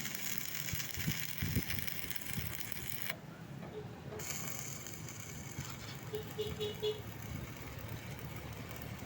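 Stick (arc) welding at about 80 amps: a steady crackling hiss that cuts out for about a second a few seconds in, then resumes.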